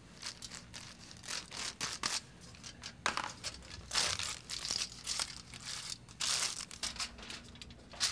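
Sheets of aluminium foil crinkling in short crackles, several times over, as they are handled and folded around strands of hair during foil highlighting.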